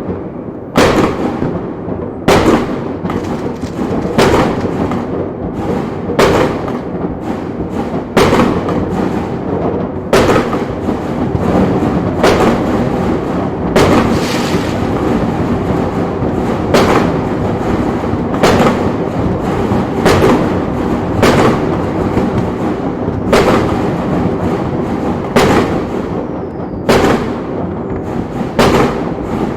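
Fireworks going off: sharp bangs about every one to two seconds over a continuous rumble and crackle.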